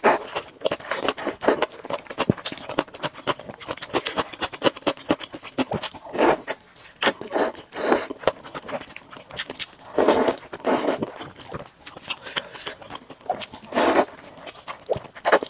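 Close-miked eating sounds: slurping rice noodles and chewing, with many small wet clicks and smacks and a few longer slurps.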